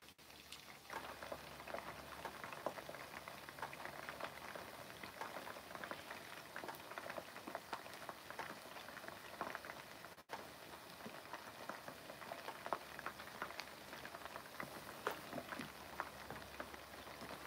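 Chicken wings deep-frying in hot oil in a wok: a steady sizzle full of small crackles and pops as the wings near the end of frying.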